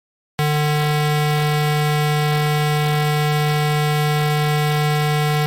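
Synthesized emergency-alert buzzer tone of an EAS-style alert, sounding about half a second in as one steady, harsh low buzz with many overtones and carrying on without change. It signals the alert ahead of the spoken warning message.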